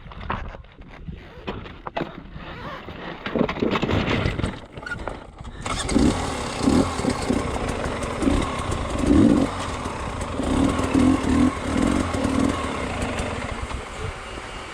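Enduro motorcycle engine running at low revs with repeated short bursts of throttle on a rocky downhill. About six seconds in, a steady rushing noise joins it.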